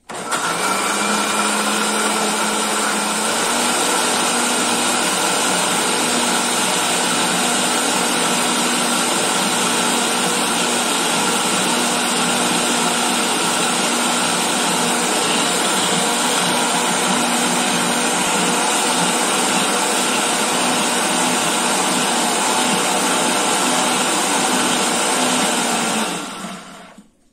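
Countertop electric blender running, loud and steady, grinding a thick mash of green corn kernels, sausage, garlic and a little water. Its motor hum steps up slightly in pitch about three seconds in, and near the end it is switched off and winds down.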